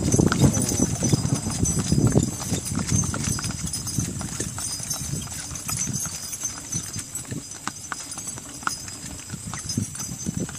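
Hooves of a pair of mules clip-clopping steadily on asphalt as they pull a wagon.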